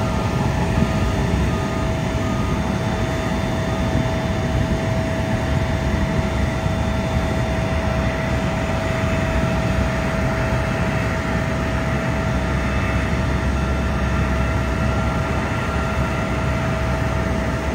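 Turbine noise of a Boeing 777 during pushback: a loud, steady low rumble with a steady whine over it.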